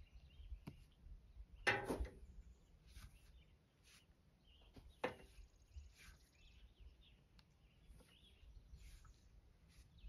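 Steel shovel scooping loose sawdust and tossing it into a wheelbarrow: a few quiet scraping rustles, the clearest about two seconds in and about five seconds in, with faint birds chirping.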